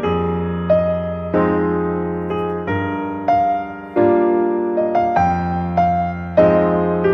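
Background piano music: a slow, gentle piece of single notes and chords, each struck and then fading.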